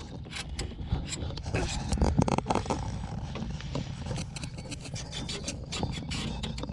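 Rubbing and scraping handling noises with scattered light knocks, as a drain pipe and its fittings are handled and marked for a cut.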